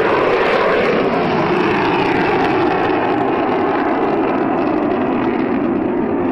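Fighter jet flying away low over open ground: a loud jet-engine rush with a tone that slowly falls in pitch as it recedes, easing off slightly near the end.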